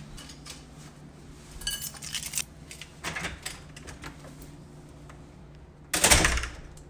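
Light clinks and clatters of small hard objects, a few of them ringing briefly, then a louder burst of noise about six seconds in that fades over half a second.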